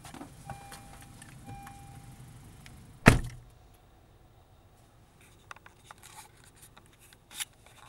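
A car door shutting with one heavy thunk about three seconds in, after which the closed cabin goes quiet apart from a few faint clicks.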